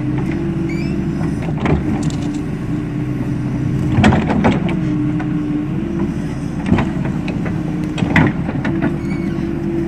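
Diesel engine of a Doosan D140W wheeled excavator running steadily, with a few sharp knocks over it.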